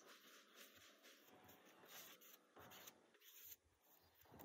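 Faint, irregular scraping strokes of a hand tool worked over hardened body filler on a car door panel.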